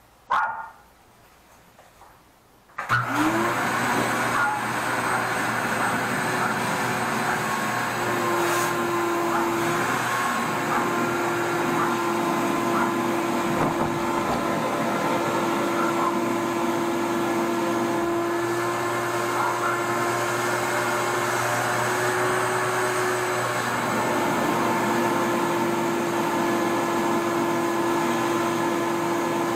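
RIDGID wet/dry shop vacuum switched on about three seconds in and running steadily, with a steady whine over its rushing noise, suctioning out a clogged toilet's drain.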